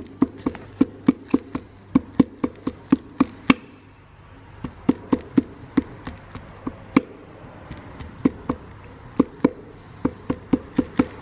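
Quick light taps, about three to four a second, knocking a piston of an Audi 2.5 TFSI five-cylinder (DAZA) through a piston ring compressor into its cylinder bore. The piston is going in stiffly. The taps pause about three and a half seconds in and resume in sparser runs, over a low steady hum.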